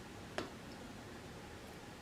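A single light click of a spoon against the food pot while eating, over a quiet room background.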